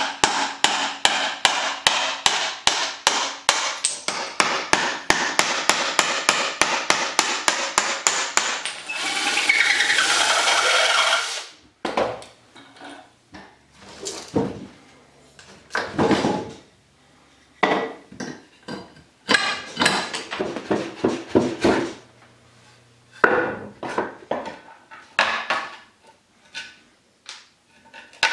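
Rapid, evenly spaced hammer blows on a steel punch, about four or five a second, driving old fasteners out of a weathered timber frame. Then a few seconds of steady harsh noise that cuts off sharply, followed by scattered knocks, creaks and scrapes as old nails are pried out of the wood.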